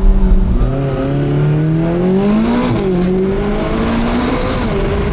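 McLaren 570GT's twin-turbo V8 accelerating, heard from inside the cabin: the engine note climbs, drops sharply at an upshift about two and a half seconds in, then climbs again.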